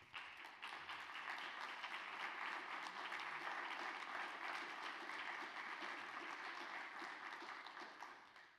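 Audience applauding: a dense clatter of many hands clapping that holds steady, then dies away near the end.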